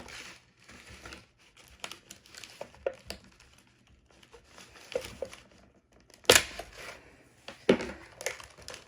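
Stiff product packaging being pulled and ripped open by hand, crinkling and tearing, with two louder sharp cracks about six and eight seconds in.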